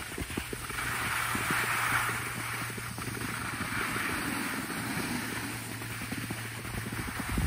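Snowboard sliding and scraping over packed, rutted snow, with a gritty hiss that swells about a second in and irregular crunching underneath. A steady low hum runs beneath it.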